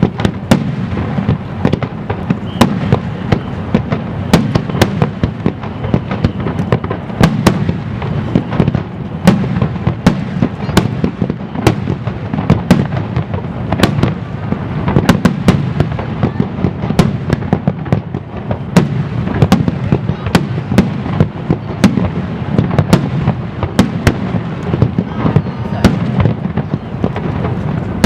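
Aerial fireworks shells bursting in a continuous barrage. Sharp bangs come a couple a second over a steady low booming rumble.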